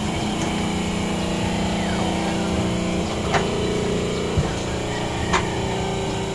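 A steady motor hum runs throughout, with three short sharp clicks in the second half.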